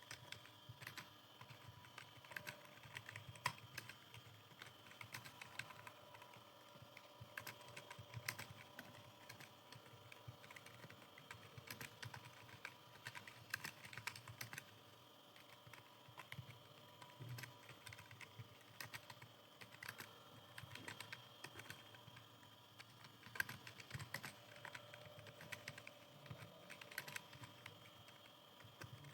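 Computer keyboard being typed on continuously, keys clicking in a quick, uneven stream with now and then a louder keystroke.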